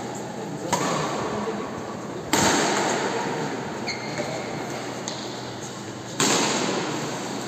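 Badminton rackets striking a shuttlecock: three sharp hits, a lighter one just under a second in and louder ones about two and a half and six seconds in, each echoing in a large hall.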